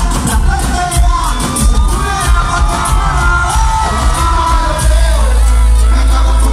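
Loud live reggaeton concert music over a PA, with singing over a heavy bass beat and shouts from the crowd. About five seconds in, the bass settles into one steady held low note.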